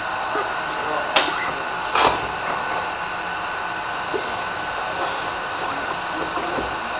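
Two sharp metallic clicks about a second apart, then a few light ticks, as a small brass model steam engine is handled and its flywheel turned by hand. Under them is a steady rushing hiss.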